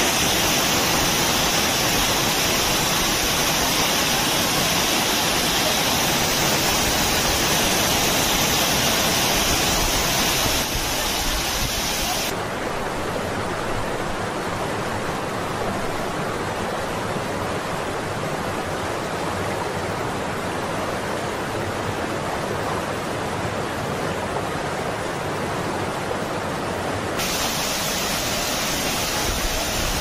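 A waterfall pouring down: a steady, loud rush of water noise. From about twelve seconds in it turns duller and a little quieter, then brightens again near the end.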